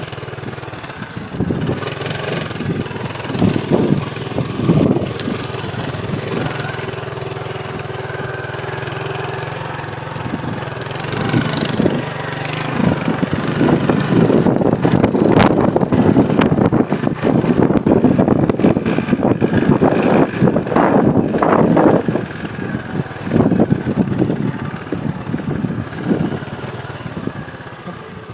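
Motorcycle engine running while riding, steady at low revs for the first ten seconds or so, then louder and rougher from about halfway.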